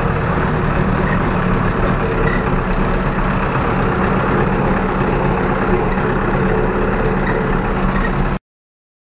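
Zetor 6745 tractor's four-cylinder diesel engine running steadily. It cuts off abruptly near the end.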